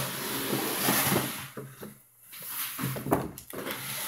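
Cardboard box and plastic Peppa Pig's House playset scraping and rustling as the toy house is slid out of its box. The handling comes in two stretches with a short pause about two seconds in.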